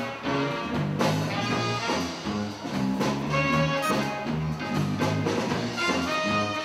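Background music: a jazzy, swing-style tune with brass over a bass line that steps from note to note.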